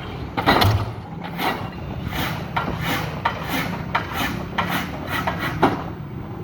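Excavator bucket knocking concrete sheet piles down into a riverbank: a run of sharp knocks, about two to three a second, stopping near the end, over the steady running of the excavator's engine.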